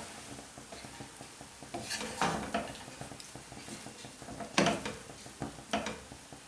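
A spoon stirring and mixing steamed rice in a cooking pot: soft scraping with several sharp knocks of the spoon against the pot.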